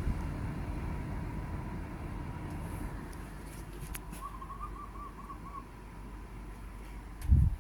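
Mini-split air conditioner unit running with a faint low hum and a thin steady high tone, with a short warbling run of high electronic tones about four seconds in. A short low thump comes near the end.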